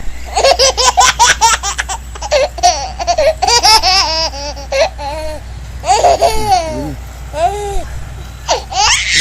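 Hearty, high-pitched laughter in rapid repeated bursts, with squealing rises and falls in pitch in the middle.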